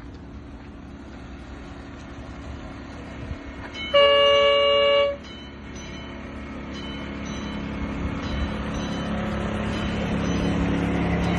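Train horn sounding once for about a second, over the rumble of a train, which grows steadily louder after the horn.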